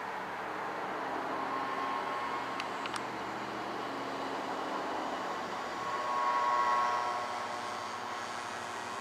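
Federal Signal Model 2 motor-driven fire siren sounding during its weekly test. Its tone is fairly faint under a steady rushing noise and swells louder about six seconds in.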